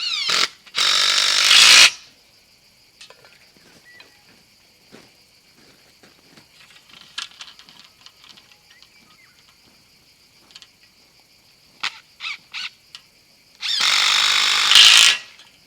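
Power drill running in short spurts as the solar panel mounts are fastened: a brief burst, a run of about a second, three quick pulses near the end, then a longer run of about a second and a half.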